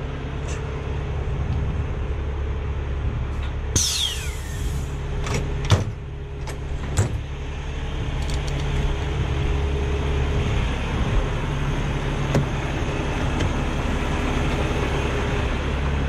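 Freightliner semi truck's diesel engine idling steadily, running again on its newly replaced starter. There is a short hiss of air about four seconds in, and a few sharp clicks soon after.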